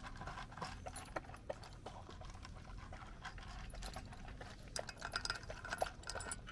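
A Shiba Inu eating dry kibble from a stainless steel bowl: a run of irregular crunches and small clicks as it chews and picks up pieces.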